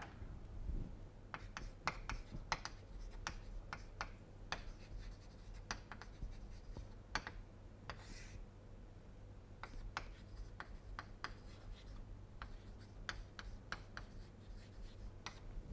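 Chalk writing on a chalkboard: an irregular run of sharp taps and short scratchy strokes as letters are written, over a steady low hum.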